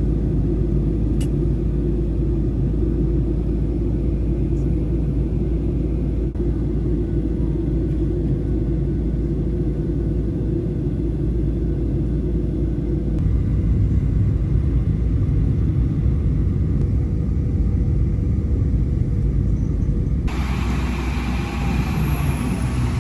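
Steady low rumble of an airliner's cabin in flight, engine and airflow noise, changing slightly in character twice.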